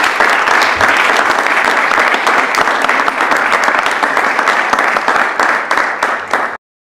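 Audience applauding at the close of a talk, a dense patter of many hands clapping that stops abruptly near the end.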